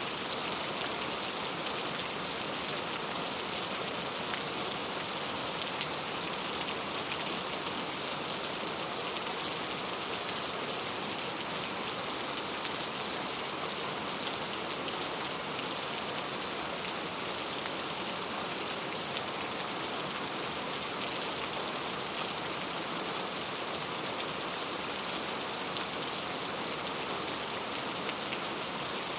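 Heavy rain falling steadily, an even hiss with fine scattered drop ticks and no let-up.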